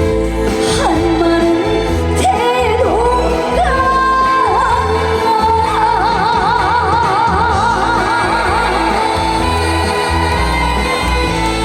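Live music: a female singer over band accompaniment, with a steady bass beat. About halfway through she holds one long note with wide vibrato.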